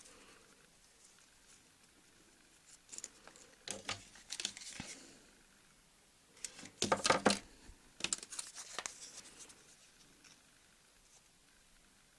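Hands handling foamiran (foam sheet) petals while gluing a craft flower: three short bursts of rustling and crinkling, the loudest a little past the middle.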